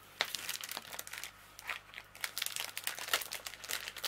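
Clear cellophane covering on a diamond painting canvas crinkling in quick, irregular crackles as hands press and smooth it flat to work out its creases.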